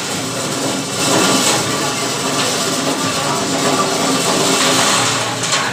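Busy market din of voices and running engines, with a few knife strikes on a fish laid on a wooden chopping block.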